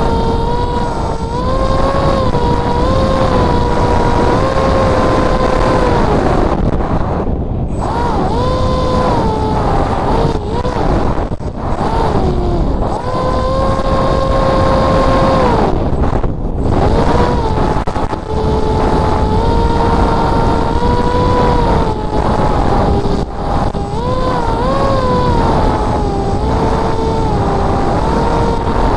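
Electric motor and propeller of a Spec Wing flying wing whining in flight, the pitch stepping and gliding up and down with the throttle and cutting out briefly twice. Heavy wind rush on the onboard camera's microphone runs under it.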